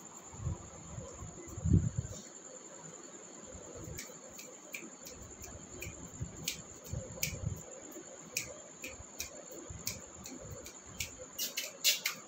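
Scattered sharp clicks of a puppy's claws on a hard terrazzo floor, coming faster near the end, with a couple of dull thumps in the first two seconds, the louder one about two seconds in. A steady high-pitched tone, like a cricket's trill, runs under it throughout.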